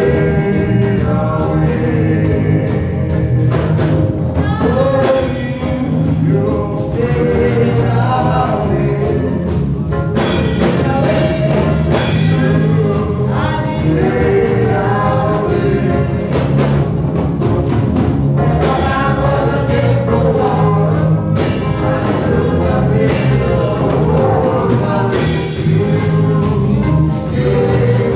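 Gospel music with singing, possibly a choir, over a steady bass line.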